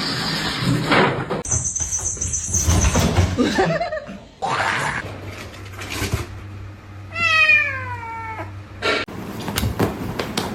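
A domestic cat meowing: one drawn-out call about seven seconds in, falling in pitch, among other shifting noises.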